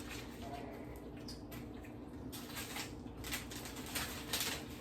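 Faint scattered clicks and scrapes of cutlery on a plate over a steady low room hum.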